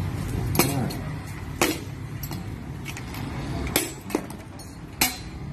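Confiscated aftermarket motorcycle exhaust (knalpot brong) being smashed on pavement. Several sharp metallic clanks ring out at irregular intervals, with the loudest about half a second, a second and a half, nearly four, and five seconds in.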